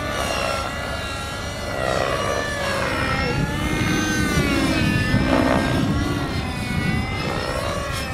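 Radio-controlled 3D helicopter flying aerobatics overhead, its motor and rotor whine steady in level but sliding up and down in pitch as it moves through its manoeuvres.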